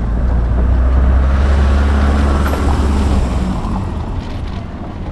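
A Mercedes-Benz Vito van's engine running close by as the van overtakes. The low rumble is loudest in the first three seconds and fades as the van pulls ahead.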